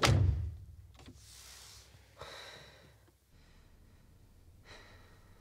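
A woman breathing and sighing quietly, with three separate audible breaths spaced a second or two apart.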